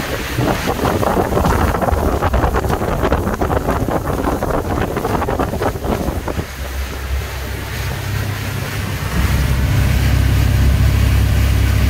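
Wind buffeting the microphone over a cruising motor yacht, gusty and loud. About halfway through this gives way to the steady low drone of the twin MAN six-cylinder diesel engines at cruising speed, heard from the helm, growing louder near the end.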